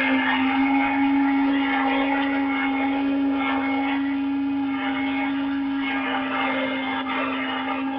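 Radio-controlled model helicopter's small two-stroke glow engine running steadily with its rotor turning while the model sits on the ground, a single even buzzing note.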